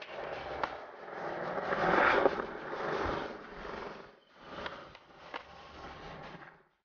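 Skateboard on concrete: the board scraping along a ledge, then its wheels rolling on the pavement, with a few sharp clacks of the board.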